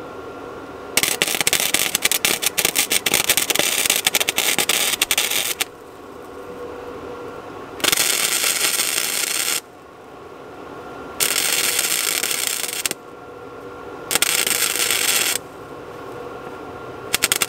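Wire-feed arc welder welding in bursts, a harsh crackle with rapid spitting. The first bead runs about five seconds, followed by four shorter bursts of a second or two each. Between bursts there is a steady hum.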